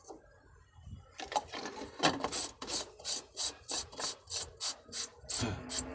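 Rhythmic rasping strokes by hand, about three a second, starting about a second in and keeping an even pace.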